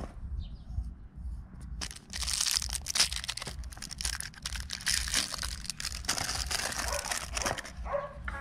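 Rustling, crinkling handling noise with many small irregular clicks, starting about two seconds in, over a low steady rumble.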